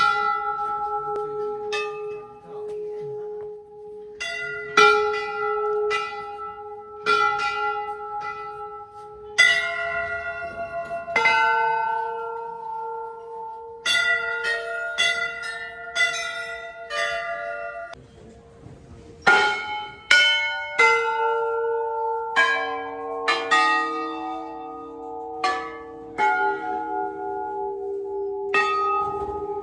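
Several metal bells of different pitches struck by hand one after another at uneven intervals, every second or two, each ringing on long so the tones overlap; a lower-pitched bell joins in about two-thirds of the way through.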